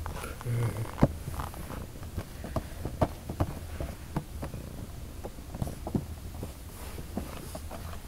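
Cat purring close to the microphone, with scattered light clicks and taps as it noses around in an open box of small items.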